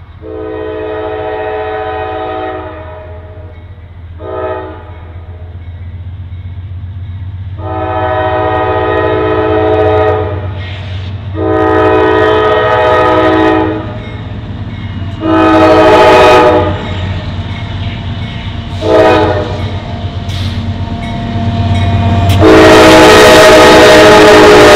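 Norfolk Southern AC44C6M diesel locomotive sounding its horn in a series of long and short blasts for a grade crossing as it approaches, over a low engine rumble that grows louder. Near the end it passes close with a loud rush of engine and wheel noise under a final horn blast.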